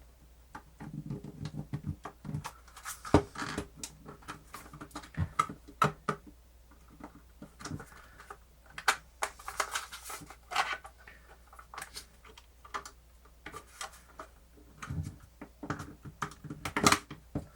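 Irregular small clicks, taps and brief scraping of plastic parts as the halves of a portable cassette player's case are pressed and worked together, its switches and knobs not lining up.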